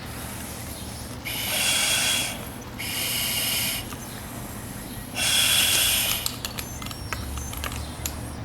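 SCBA demand regulator hissing with breaths drawn through a firefighter's face piece: three surges of about a second each. After these come light clicks and rattles of gear being handled.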